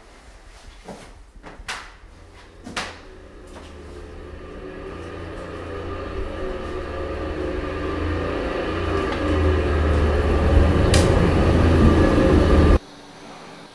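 A few light taps and clicks, then a low rumbling drone that swells steadily louder for about eight seconds and cuts off suddenly near the end: a film sound-design build-up.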